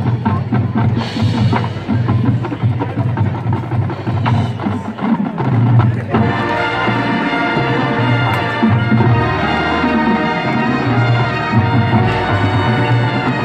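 Marching band playing: drums and percussion strikes over a pulsing bass drum, then held chords from the winds and brass with mallet percussion from about halfway through.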